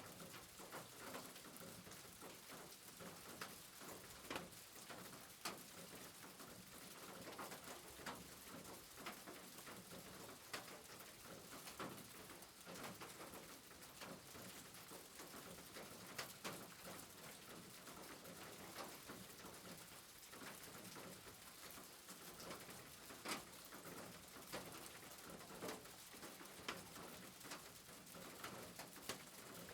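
Steady rain falling softly, with irregular drips tapping throughout.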